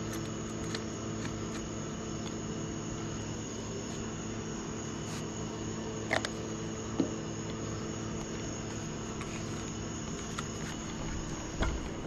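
Steady background hum carrying a faint high whine, with a few light clicks from handling a small plastic bottle about halfway through and a soft knock near the end.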